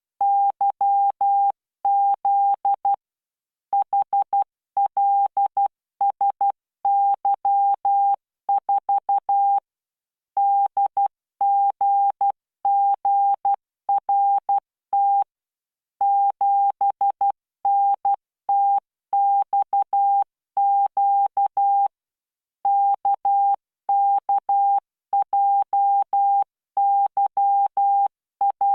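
Morse code practice tone generated by CW training software at 12 words per minute: a single steady tone beeping out dots and dashes, characters separated by short gaps, with a few longer pauses between groups.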